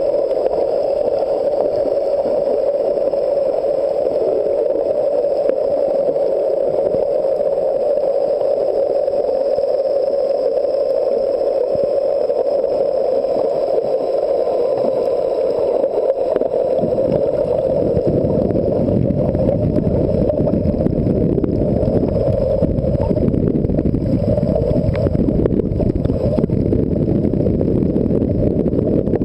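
Muffled underwater noise picked up by a submerged camera: a steady hum, with a deeper rumble joining a little past halfway.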